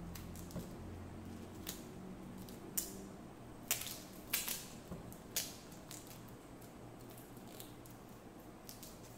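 Cloth wiring-harness tape (tesa tape) being pulled off the roll and wrapped around a bundle of wires: scattered sharp crackles and ticks, thickest between about two and six seconds in.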